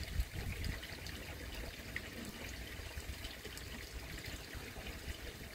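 Faint, steady trickle of pond water with a few light clicks.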